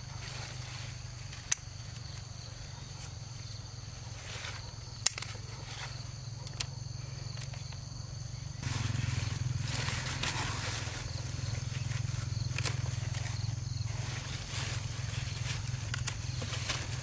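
Rustling and movement outdoors, with two sharp snaps in the first five seconds. It gets louder and busier about halfway through, over a steady low hum and a high steady tone.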